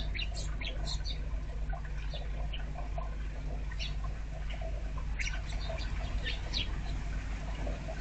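Small birds chirping: short, high chirps scattered irregularly, several close together near the start and again about five to six and a half seconds in, over a steady low hum.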